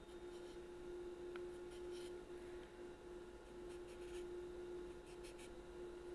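Small abrasive stick rubbed against the thumb rest of a wooden Albert-system clarinet, sanding it down flush with the body. The sound is faint short scraping strokes in small groups every couple of seconds, over a steady low hum.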